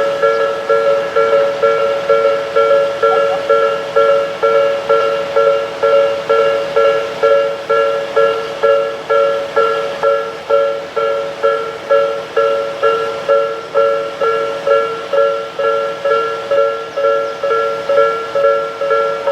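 Japanese railroad crossing's electronic warning bell ringing steadily, about two dings a second, each ding a pair of tones.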